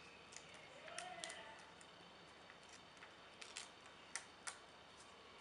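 Near silence with a few faint, scattered ticks and light rustles as a small strip of cut paper is handled and pulled free.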